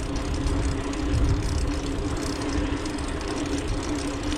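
Wind rumbling on the microphone of a moving bicycle, over a steady engine-like hum and the wash of street traffic.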